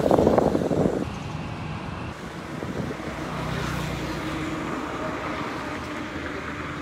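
Motor-vehicle traffic noise: a steady low engine hum with a light hiss, after a louder noisy rumble in the first second.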